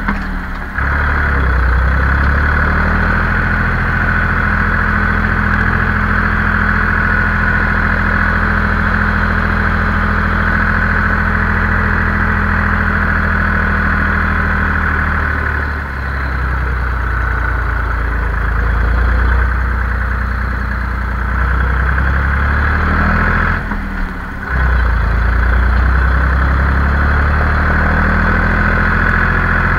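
Zetor 5245 tractor's four-cylinder diesel running under way, heard from inside the cab, with a steady high whine over the engine note. The engine note dips briefly three times, near the start, about halfway and again a little later, then picks up again.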